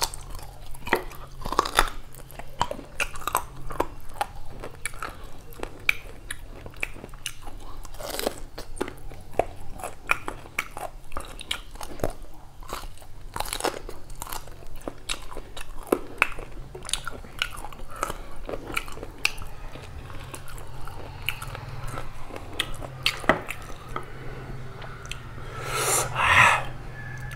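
Close-up chewing and wet mouth sounds of a person eating beef curry and rice by hand: a steady run of lip smacks and tongue clicks. Near the end comes a louder rush of breath.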